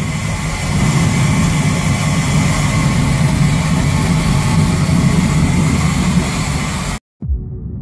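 Chevrolet LS1 V8 idling steadily just after start-up. It cuts off about seven seconds in and soft music follows.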